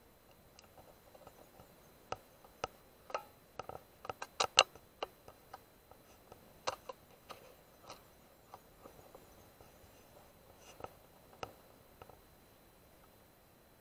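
Irregular light clicks and taps, thickest and loudest about four to five seconds in, with a single sharper tap standing out there, then thinning out and stopping a couple of seconds before the end.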